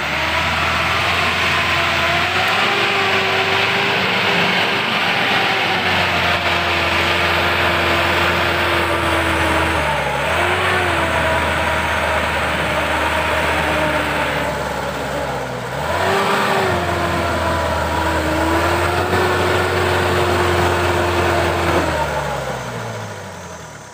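Off-road 4x4's engine held at high revs under heavy throttle as it claws up a soft, sucking mud slope, the wheels spinning and digging in rather than gaining grip. The revs drop and pick straight back up twice, about ten and sixteen seconds in, then die away near the end.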